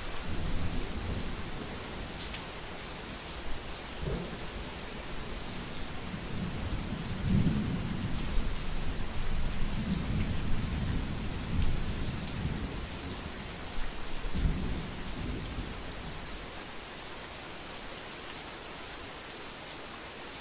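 Heavy rain falling steadily on a roof, with a low roll of thunder that swells around the middle and fades out near the end.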